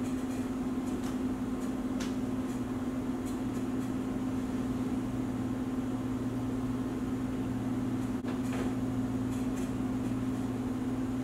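A steady, low machine hum that holds one constant pitch throughout, like a running appliance, with a few faint soft clicks scattered over it.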